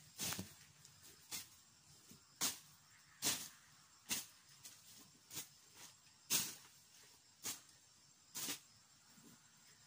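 A bolo (machete) cutting through weeds and grass: about a dozen short, sharp strokes at an irregular pace of roughly one a second.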